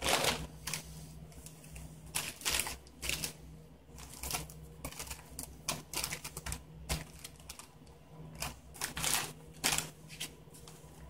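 Foil and plastic ration packets crinkling and tapping as they are handled and rummaged through: many irregular short rustles and clicks.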